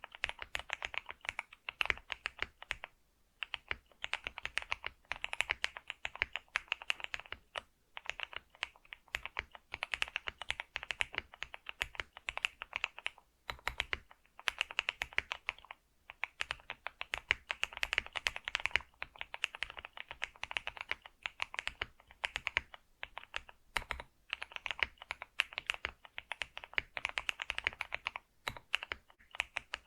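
Steady fast typing on a computer keyboard: dense runs of key clicks broken by short pauses every few seconds.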